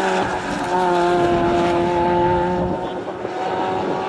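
Hatchback race car's engine running hard at high revs through a bend, with a steady, even note that drops away about three seconds in.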